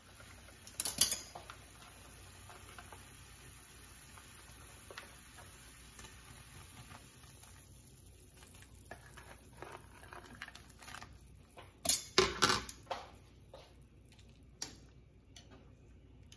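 Cooking utensils knocking against a pan and a pot over a faint steady hiss of cooking. There is a sharp clack about a second in, and a cluster of clacks and scrapes around twelve to fifteen seconds in.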